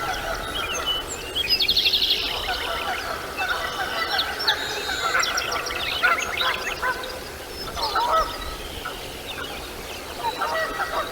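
Several birds calling over one another: honking calls mixed with quick chattering series of high notes.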